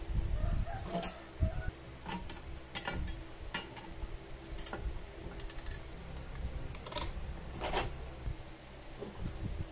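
Metal parts of an angle-grinder cutting stand clinking and knocking as it is handled and assembled by hand: scattered clicks and taps, with two sharper knocks about seven and eight seconds in.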